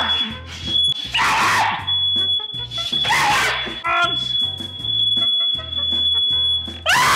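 Smoke alarm sounding a steady high-pitched tone over background music with a stepped bass line. A man gives two strained, pained groans about a second and three seconds in, and a loud shout starts near the end.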